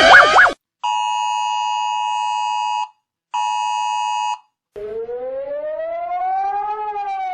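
Emergency alert alarm tones. A fast-warbling tone cuts off, then there are two long steady dual-tone beeps, about two seconds and then one second, with a short gap between. After that a siren tone rises slowly and falls back.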